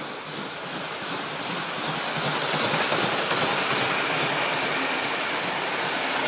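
Steam-hauled passenger train passing close at speed, its wheels clattering over the rail joints as the carriages rush by. The rush builds and is loudest about three seconds in, as the locomotive and leading carriages go past, then holds steady.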